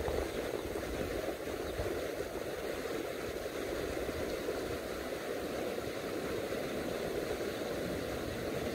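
Shallow, fast-flowing river rushing steadily.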